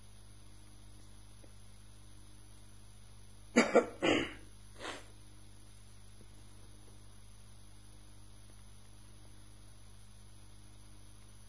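A person coughing: three quick coughs about three and a half seconds in, then a fainter one about a second later, over a steady low electrical hum.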